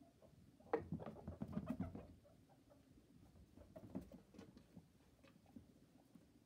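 Baby guinea pig scurrying around its cage in a burst of zoomies: a rush of quick, light taps mixed with short squeaky calls beginning about a second in. This is followed by a few scattered lighter taps.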